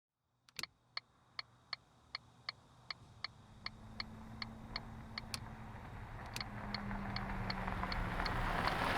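A car's turn-signal indicator ticking steadily, about three clicks a second, over engine and road noise that grows louder. There are a few sharper clicks along the way.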